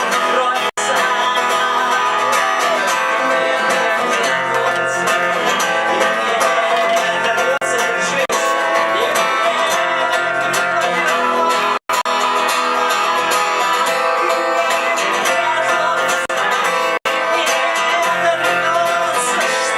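Instrumental passage of a song played live, with guitar prominent and no singing. The music drops out for a split second a few times.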